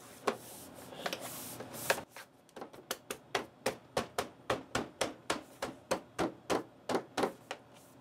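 A few scattered clicks, then a steady run of sharp knocks, about three a second, as the back cover of a Dell OptiPlex 9020 all-in-one is struck with a fist to seat its snap-in clips.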